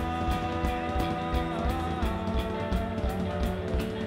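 Live indie rock band playing: electric guitar holding long notes over bass guitar and a steady drum beat.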